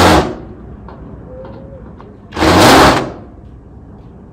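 A loud machine noise in short bursts of under a second, repeating about every two and a half seconds, with a quieter steady noise between them.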